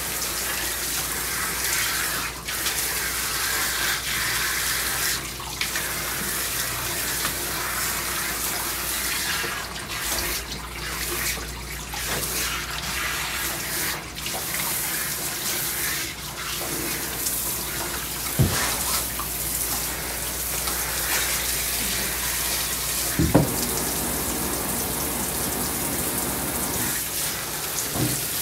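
Water spraying steadily from a hand-held hose nozzle onto a wet dog's coat in a grooming tub. Twice, brief thumps stand out over the spray.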